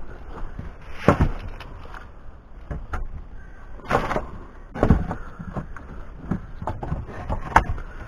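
Irregular knocks and rustles from hand handling against a mud-packed stick wall, with louder thumps about a second in, around four and five seconds in, and near the end.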